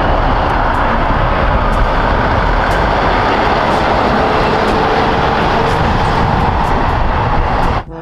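Tractor-trailer hauling a shipping container driving by: steady engine and tyre noise that cuts off abruptly near the end.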